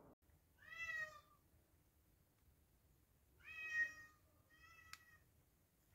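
Domestic cat meowing three times: a short meow about half a second in, a louder one about three and a half seconds in, and a fainter one just before five seconds, with a sharp click during it.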